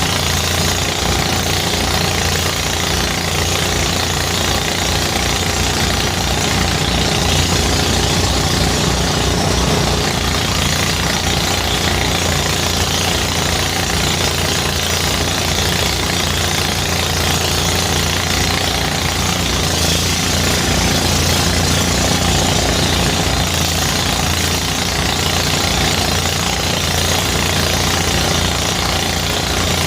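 Engine-driven rice threshing machine running steadily, its engine making a fast, even low pulse under a dense mechanical rush.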